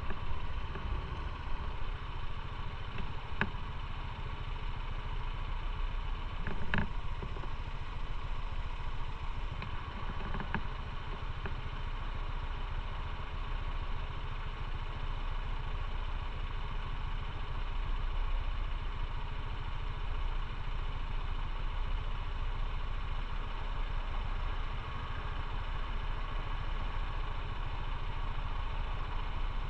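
Motorcycle engine running steadily, heard from the bike itself, with no revving up or down and a few short clicks in the first third.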